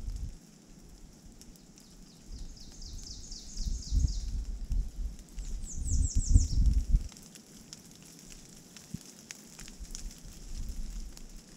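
A songbird singing two quick runs of high, down-slurred notes: a run of about ten notes some two seconds in, then a shorter, higher run of five or six about six seconds in. Gusts of wind rumble on the microphone as each run ends, and scattered raindrops tick in the later seconds.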